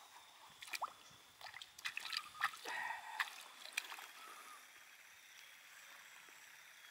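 Small splashes and sloshing of pond water at the bank as a small fish is let go by hand, a scatter of short splashes and drips in the first four seconds, then only a faint steady hiss.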